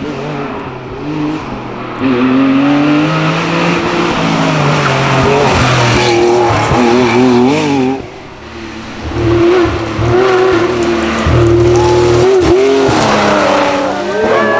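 Historic rally cars, Porsche 911s among them, being driven hard on a tarmac stage: engines revving high and dropping off between gear changes as the cars pass, in a string of separate passes.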